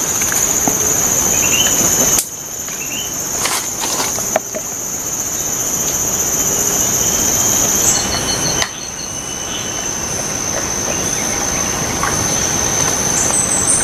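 Insects droning with a steady, high-pitched buzz over a background hiss, with a few faint clicks.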